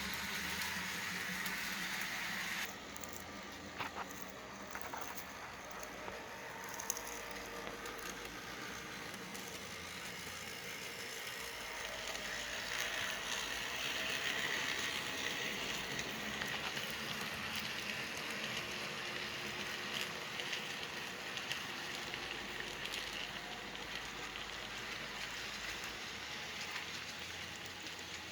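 Bachmann Spectrum N scale model locomotives running on track: a steady whirring hiss of the small motors and wheels, with scattered clicks. The level drops a little about three seconds in.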